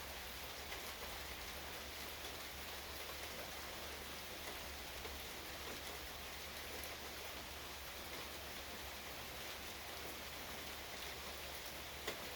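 Steady rain falling, an even hiss with scattered drops ticking, and one sharper drop tick near the end.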